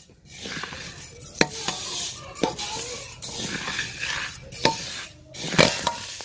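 Whole wheat grains being dry-roasted in a metal karahi and turned with a slotted metal spatula: a rustling, scraping hiss of grain sliding over the metal, with a few sharp clicks of the spatula against the pan.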